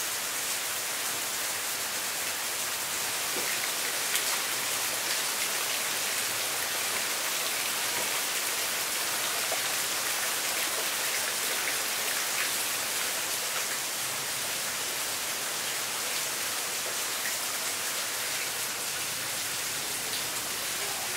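Rain falling steadily: an even hiss with scattered ticks of single drops hitting surfaces.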